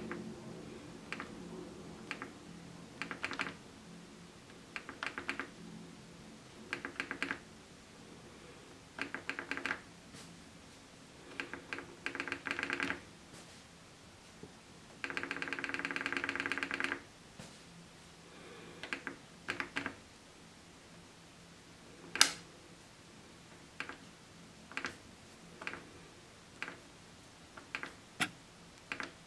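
Bosch dishwasher control-panel button pressed again and again: a series of short buzzy clicking bursts, one held for about two seconds near the middle, with a single sharp knock about two-thirds of the way through and quicker single clicks towards the end.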